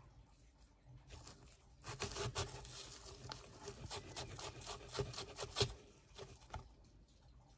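A thin wooden stick poking and scraping into dry, gritty potting mix around succulent cuttings, with fingers pressing the soil: a run of scratchy rustles and small clicks, busiest from about two seconds in until nearly six seconds.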